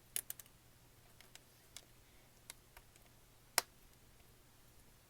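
Small sharp clicks and taps of tablet parts being handled during reassembly: a quick cluster of three just after the start, a few lighter ticks, and the sharpest click about three and a half seconds in.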